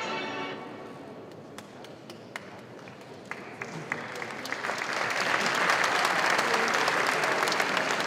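Audience applause: a few scattered claps that swell into full, steady clapping about halfway through. The tail of a music track fades out at the very start.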